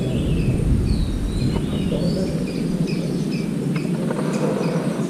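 Small birds chirping, short high calls repeating again and again, over a steady low rumble.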